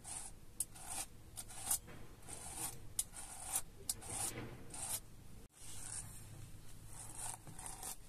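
Rustling and scraping in a quick, irregular run of short strokes, over a faint steady low hum; the sound drops out for a moment about five and a half seconds in.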